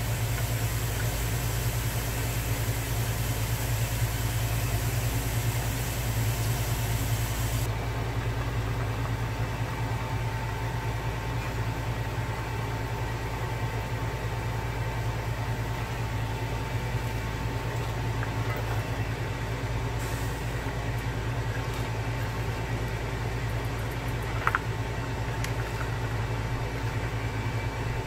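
Steady low mechanical hum of a kitchen appliance, with a faint high steady tone joining about ten seconds in and a single sharp click near the end.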